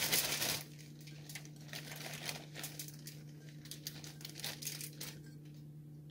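Thin plastic bread bag crinkling as it is shaken open, loudest in the first half second, then fainter rustling and small taps as cut apple pieces are tipped into it from a bowl. A steady low hum runs underneath.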